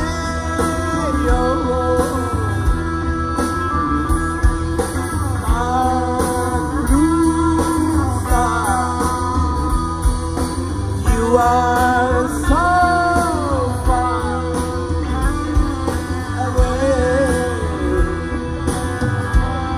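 Live psychedelic rock band playing: electric guitars, bass and drum kit, with a lead melody line sliding up and down in pitch over a steady beat.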